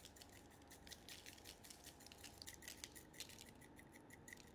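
Faint, rapid, irregular clicking and pattering of everything-bagel seasoning (sesame and poppy seeds, dried garlic and onion flakes) shaken from a shaker jar onto egg-washed dough rolls and parchment paper.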